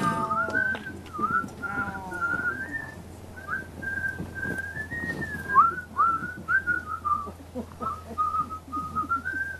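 A person whistling a tune: one melodic line of held notes, with quick slides down between some of them.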